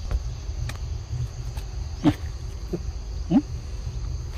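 Steady high buzz of insects, over a constant low rumble, with two short louder sounds that slide in pitch about two seconds and three and a half seconds in.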